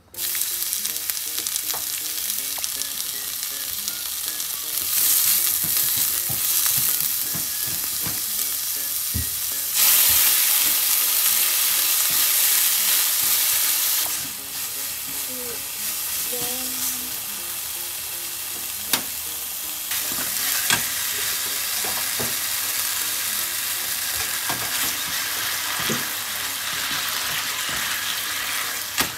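Food sizzling as it fries in a pan and is stirred, with occasional knocks of the utensil against the pan. The sizzling grows louder for a few seconds about ten seconds in, then settles.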